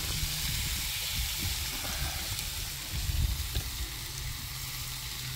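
Back and streaky bacon sizzling in two frying pans on a two-burner camping gas stove: a steady hiss over a low rumble, cutting off suddenly at the very end.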